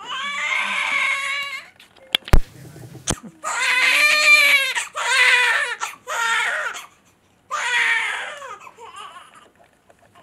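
Newborn baby crying in a series of about five high-pitched wails, each about a second long. Between the first and second wail, about two seconds in, come a few sharp knocks, the loudest of them the loudest sound here.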